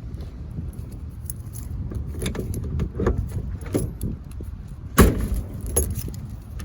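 Keys jangling and clicking at the trunk lock of a Mercedes W123, a few short knocks, then one loud thump about five seconds in as the trunk lid is shut.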